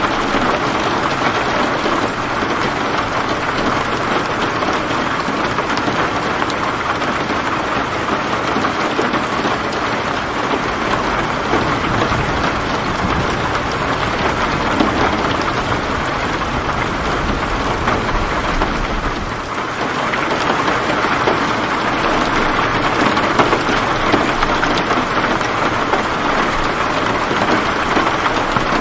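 Heavy rain falling steadily in a dense, even patter, with a low rumble underneath.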